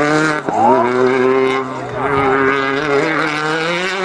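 Rally car engine running hard at high revs as the car speeds along the stage. The pitch rises and falls as it comes on and off the throttle, with a brief drop about half a second in.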